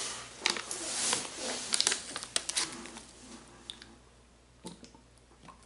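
Close-up crinkling and crackling of plastic being handled, a dense run of sharp crackles over the first few seconds. Then it goes quieter, with a few isolated clicks and soft gulps of someone drinking from a plastic jug.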